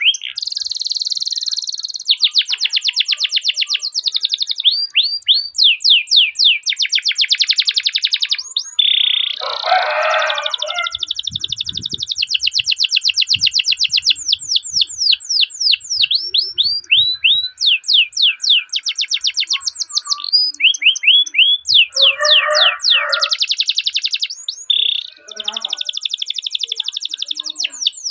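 Domestic canary singing a long rolling song: fast trills of repeated falling chirps that switch every second or two between tight buzzing rolls and slower, spaced 'cuit cuit' notes. Two short, rougher chattering bursts break in, about a third of the way in and again later.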